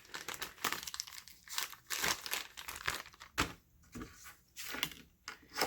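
Packaging crinkling and rustling as it is handled, in irregular bursts with brief pauses.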